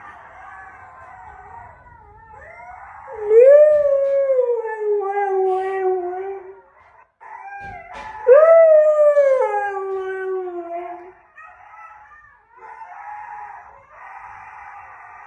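A husky howls twice, two long howls that rise briefly and then slide down in pitch. Behind them runs a fainter chorus of many overlapping howls from a pack.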